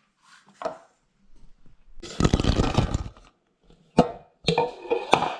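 Cup of marshmallows tipped into a mixing bowl, a dense patter of small pieces landing for about a second. A sharp knock follows, then a few clattering knocks of cup or utensil against the bowl.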